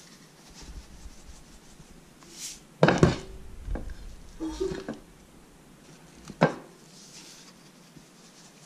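Gloved fingers rubbing salt onto the skin of a whole raw pompano on a ceramic plate, with soft rubbing and handling noise. Two sharp knocks stand out: the loudest about three seconds in, a second after six seconds.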